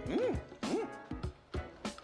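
Cold soy-milk noodles (kongguksu) being slurped hard, as three short high-pitched squeaks that rise and fall, about half a second apart, over background music.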